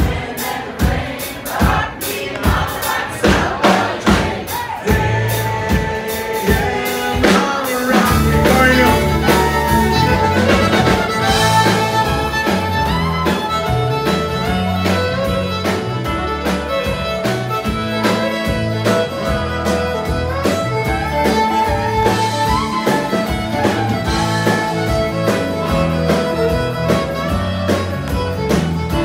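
Live country band with fiddle, acoustic guitar and drums playing. For the first several seconds mostly sharp percussive beats, then the full band comes in with a heavy bass about eight seconds in, the fiddle playing lead.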